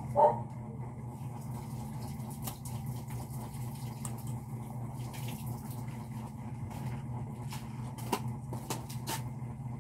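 A dog barks once, briefly, near the start over a steady low hum; a few faint clicks follow near the end.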